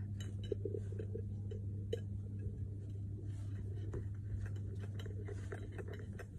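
A steady low hum in a small room, with scattered light clicks and taps.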